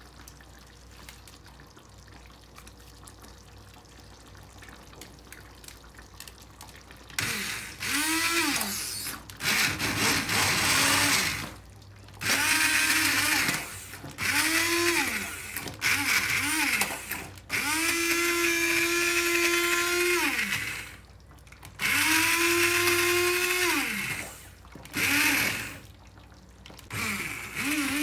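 Hand-held immersion blender pureeing cooked tomatoes and onions in a pot. After about seven seconds of quiet it is switched on and off in repeated bursts, most of one to three seconds and one longer; the motor whine rises as each burst starts and falls away as it stops.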